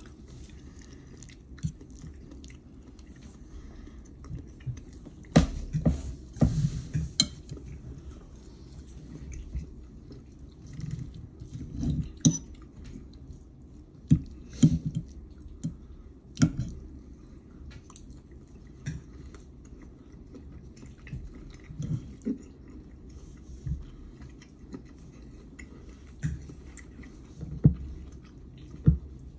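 Close-up eating sounds: chewing, with a fork clicking and scraping now and then on a ceramic dinner plate.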